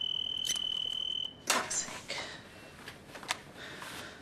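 A high, steady electronic beep held for over a second that cuts off suddenly, followed by a sharp click with a rustle and a few lighter clicks.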